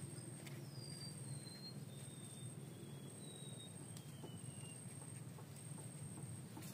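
Faint bird song: a run of short whistled notes, each sliding a little lower, lasting about four seconds, over a steady high-pitched whine and a low background rumble.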